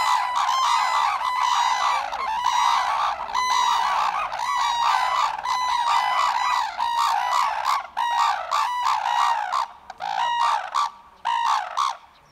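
Red-crowned cranes trumpeting: many birds calling at once in loud, rapidly repeated calls. The calling breaks up into shorter bouts after about eight seconds and stops just before the end.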